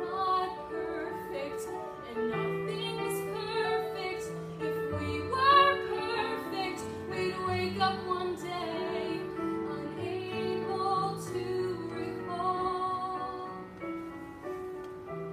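A girl singing a slow solo song over an instrumental backing track played through a small portable speaker.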